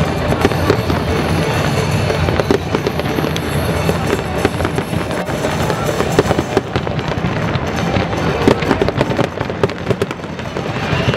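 Aerial fireworks going off in a dense barrage: shells bursting one after another, with a constant crackle of many quick pops.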